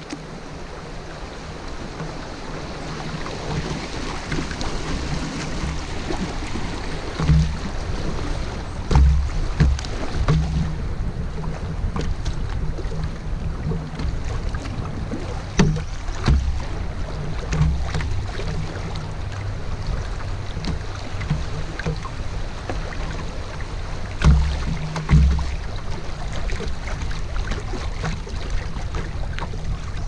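River water rippling and lapping around a canoe on the move, with low rumbling and a few sharp knocks scattered through.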